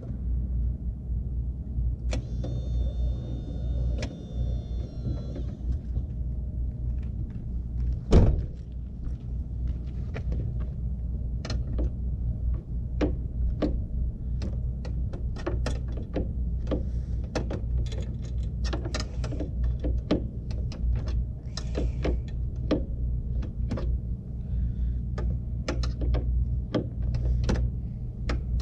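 A vehicle engine idles with a steady low rumble under a long run of irregular sharp clicks, as a hand tool works the headlight aim adjusters. There is a brief high whine about two seconds in and one loud knock about eight seconds in.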